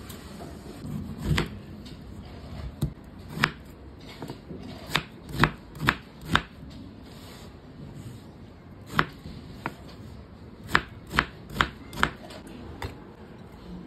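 Chef's knife cutting through peeled, fire-roasted guava and knocking on a bamboo cutting board: about fourteen sharp, irregular chops, with a quick run of four near the end.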